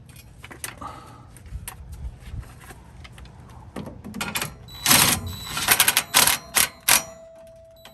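Hand tools clicking and clinking against a steel bolt and brace as the bolt is lined up and turned in with a 17 mm wrench. Light, scattered clicks at first, then a quick run of sharp, louder clicks and knocks in the second half.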